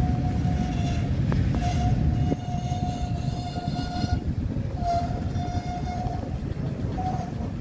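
Rumble of a freight train's last covered gondolas rolling past over the rails, with a few clicks from the wheels over the joints and a steady high squeal from the wheels that breaks off and comes back several times. The rumble drops about two seconds in as the end of the train goes by.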